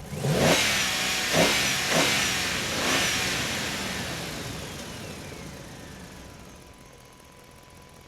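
Car engine revving four times in quick succession, then fading away over several seconds.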